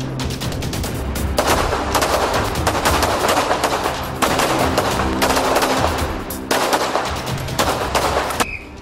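Pistol fire from several shooters: rapid, overlapping handgun shots over background music. The shots stop and the sound fades out near the end.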